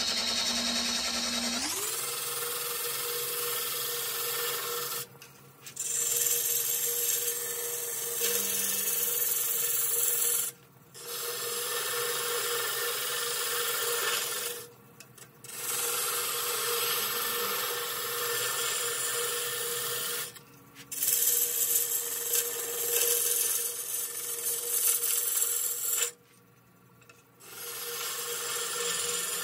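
Spindle gouge cutting a spinning tea tree (melaleuca) blank on a wood lathe turning at about 680 rpm: a steady scraping, hissing cut. It stops briefly about five times as the gouge comes off the wood, with the longest pause near the end.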